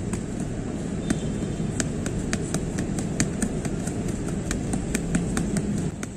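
Boxing gloves smacking into punch mitts in quick combinations: a run of sharp pops, about four a second, over a steady low background rumble.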